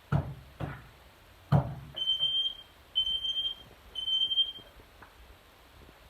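Smoke alarm sounding under test: three high, steady beeps, each about two-thirds of a second long and a second apart. Three sharp thumps come before the beeps.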